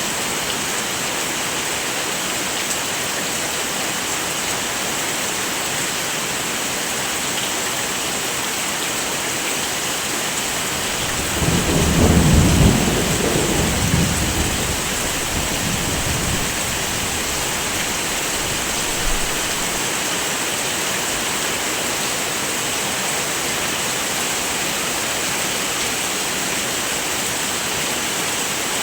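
Heavy rain falling steadily. About eleven seconds in, a roll of thunder rumbles for a few seconds and then fades back under the rain.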